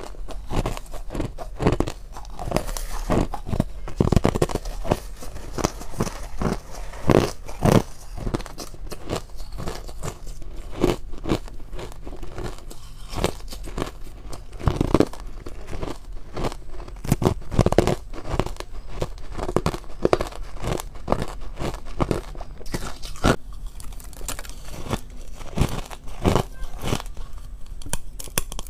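Close-up biting and chewing of crunchy purple powdered ice: a continuous run of irregular, sharp crunches as mouthfuls of ice are broken between the teeth.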